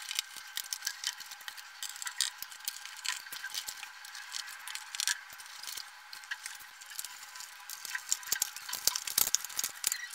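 Scattered clicks, taps and light rattles of plastic and metal parts as a projector's opened chassis is handled during disassembly, coming thicker near the end.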